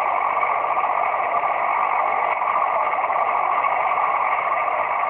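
Steady hiss of band noise from a Kenwood TS-480 transceiver's speaker, tuned to 27.595 MHz on the 11-metre band, with no voice coming through.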